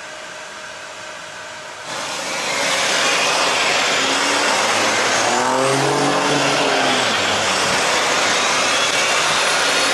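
Inside a car cabin with a steady fan hum, then road traffic noise comes in loudly about two seconds in, as if through an open side window. Around the middle, a nearby vehicle's engine rises and then falls in pitch.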